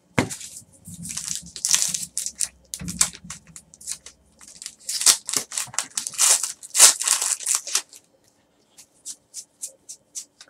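Crinkling and tearing of a wrapped baseball card pack's wrapper as it is ripped open by hand, densest in the middle, followed by a few light ticks as the cards are handled.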